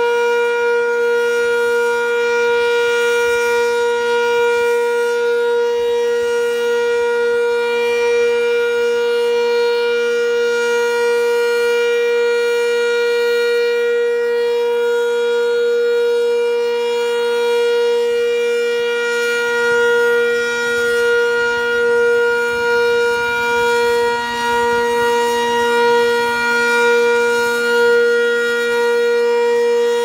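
Sentry 10V outdoor warning siren sounding the steady Alert signal: one long, unbroken, loud tone that holds its pitch, wavering slightly in the second half.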